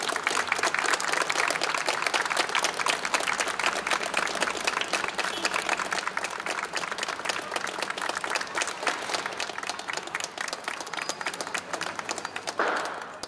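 Outdoor crowd applauding: many hands clapping fast and dense, slowly thinning out, with a brief louder burst near the end.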